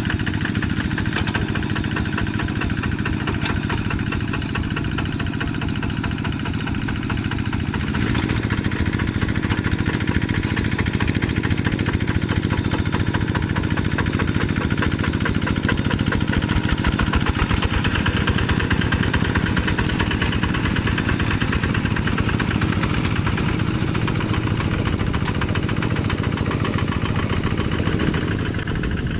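Diesel engine of a two-wheel hand tractor running steadily while ploughing a rice field. It grows a little louder about eight seconds in and eases back near the end.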